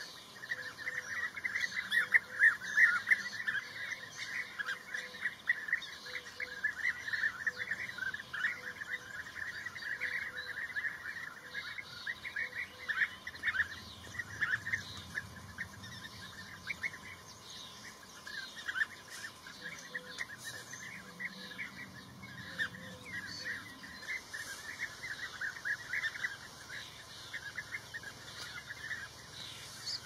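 A flock of bee-eaters calling: many short chirps overlapping without a break, loudest in the first few seconds.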